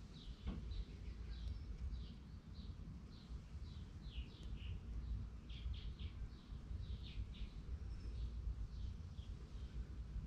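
Small birds chirping, a quick series of short falling notes, two or three a second, over a steady low rumble.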